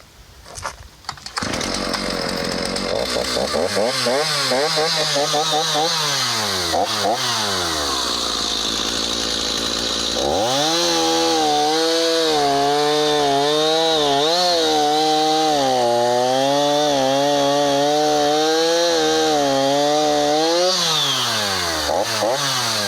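Stihl MS290 chainsaw's 56.5 cc two-stroke engine starts after a few quick pulls, revs up and down, then holds at full throttle through a cut for about ten seconds, its pitch wavering under load. It drops back to idle near the end.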